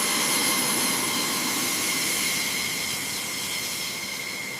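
Aircraft turbine engine running: a steady rushing hiss with a high, steady whine, easing off slightly toward the end.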